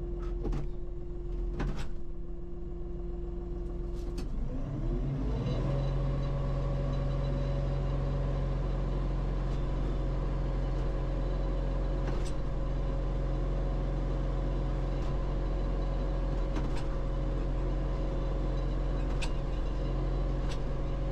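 New Holland Boomer 55 tractor's engine running steadily heard from inside the cab, with a few light clicks in the first four seconds; at about four seconds the engine note rises and holds at a higher steady pitch as the hydraulic front loader is raised on full lever, then drops back at the end.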